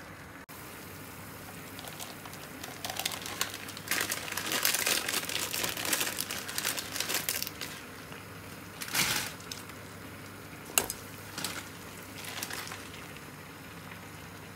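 Plastic instant-noodle packet crinkling as it is handled, in dense bursts from about three to eight seconds in and again briefly later, over a low steady hiss. A single sharp click near the end.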